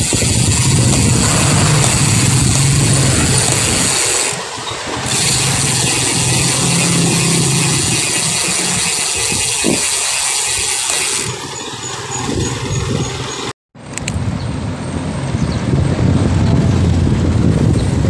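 Wind rushing over a handlebar-mounted phone's microphone on a moving bicycle, mixed with road traffic as a jeepney is passed close by. The sound cuts out completely for a moment about three-quarters of the way through.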